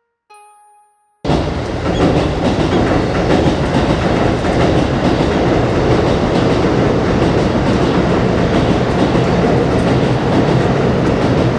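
Train passing on an elevated track directly overhead, heard from the space beneath it: a loud, dense rumble and rattle that starts suddenly about a second in and cuts off abruptly near the end. A single plucked music note sounds just before it.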